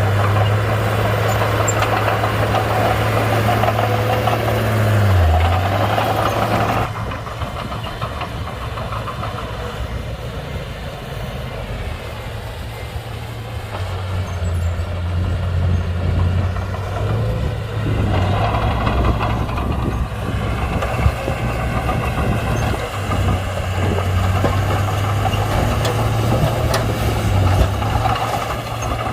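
Komatsu D31-P bulldozer's diesel engine running, dipping briefly in pitch about five seconds in. The sound drops quieter and thinner about seven seconds in, then the engine comes back stronger from about fourteen seconds.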